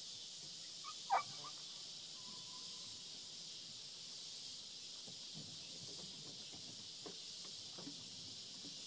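A steady, high-pitched drone of insects over open ground. About a second in comes one short, sharp animal call, followed by a few faint rustles.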